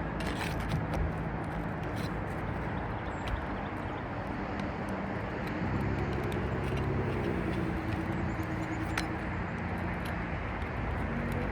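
Steady outdoor rumble of road traffic, with one vehicle's engine note swelling and wavering in the middle, and a few faint ticks and scrapes over it.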